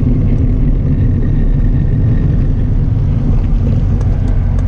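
Wind buffeting the microphone of a camera carried on a moving bicycle: a loud, unbroken low rumble.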